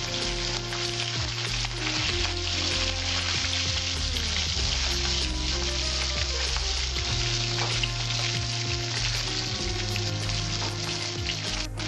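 Katla fish pieces sizzling as they fry in hot mustard oil in a metal kadai, with a steady hiss of spitting oil. A metal spatula turns the pieces partway through.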